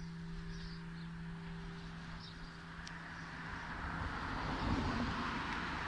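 Large bronze church bell, tuned to E (Mi3) and cast by De Poli in 1921, dying away after its last stroke, its low hum note the last to fade, about four seconds in. A rushing noise swells through the second half, and faint bird chirps come near the start.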